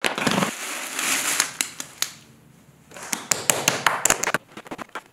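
Plastic bucket lid pried open, the plastic creaking and crackling with sharp snaps for about two seconds. Then a quick run of sharp taps and rustles as a lump of the clay-like kaolin and alumina mix is pressed and worked on a wooden board.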